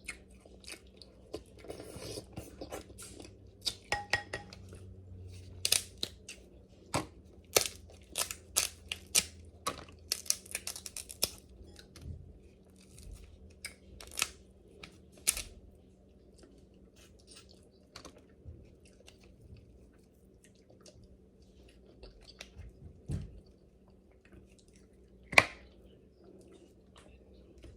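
King crab legs being eaten close to the microphone: the shells are cracked and pulled apart in a run of sharp snaps and crackles, with chewing in between. The cracking is busiest in the first half, and there is one loud sharp crack near the end.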